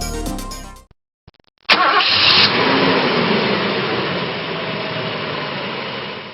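Background music ends about a second in; then the Holden VL Turbo Commodore's turbocharged straight-six is started, catching loudly with a brief flare about a second and a half later, and settles into a steady idle.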